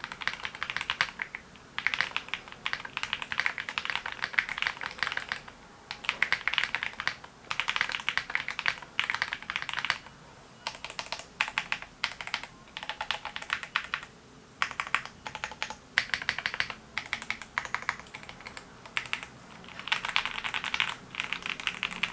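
Typing on a Sisyphus65 mechanical keyboard built with an FR4 plate, Tessence (Jihua) switches, TX stabilizers and PBT keycaps: rapid key clacks in runs of one to two seconds with short pauses between.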